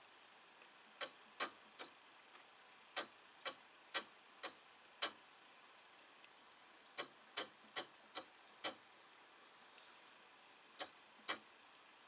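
Sewing machine taking slow stitches one at a time, each stitch a sharp click with a brief high ring. The clicks come in short runs of two to five at about two a second, with pauses between runs.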